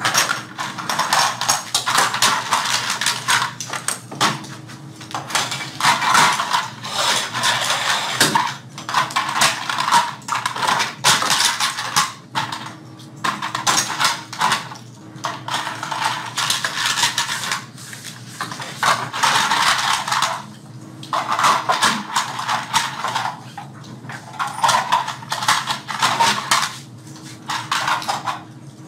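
Small hard toy-airplane parts clicking and clattering as they are handled and fitted together, in irregular bursts a second or two long.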